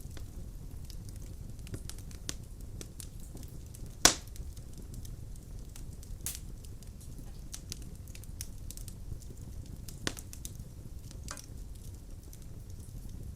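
Wood fire burning in a fireplace: a steady low rumble of flames with scattered sharp crackles and pops, the loudest pop about four seconds in.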